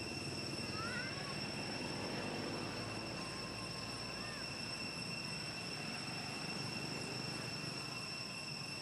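Outdoor forest ambience: a steady high-pitched insect drone, with a few short faint chirps about a second and about four seconds in.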